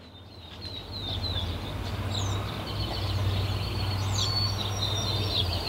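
Several birds chirping and calling in quick short notes, fading in from silence over the first second or so, over a steady low hum.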